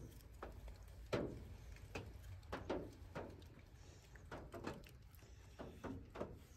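Puppy playing on her back on a couch, mouthing and pawing at a person's hand: faint, irregular scuffles, rustles and soft knocks against the cushions.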